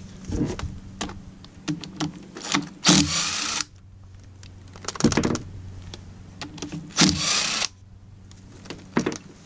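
Tools working on the 10 mm bolts that hold the motorcycle's front sprocket: metallic clicks and knocks, with two short bursts of rapid mechanical clicking, about three seconds in and again about seven seconds in.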